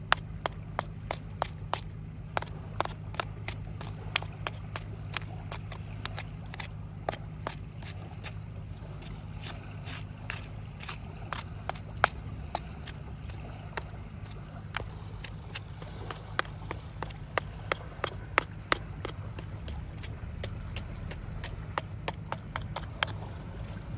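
Small flat scraper chipping and scraping caked rust and dried clay off a corroded metal telescope tube: irregular scrapes and sharp clicks, a few a second, some louder than others, over a steady low hum.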